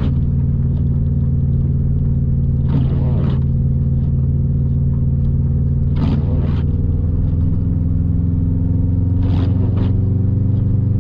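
Subaru WRX STI's turbocharged flat-four engine running steadily at low revs while driving, heard from inside the cabin, its pitch rising slightly past the middle. Three short bursts of noise come about three, six and nine and a half seconds in.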